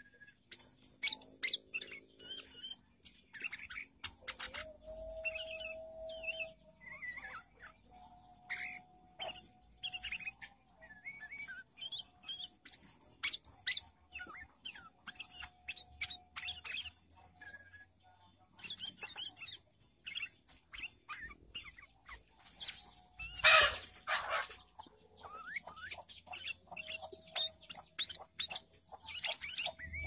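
Sooty-headed bulbul singing a rapid, varied string of short chirps, trills and whistled notes, broken by short pauses, with a brief louder, harsher burst about two-thirds of the way through.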